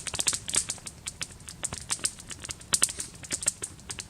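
Wood campfire crackling: a quick, irregular run of sharp pops and snaps.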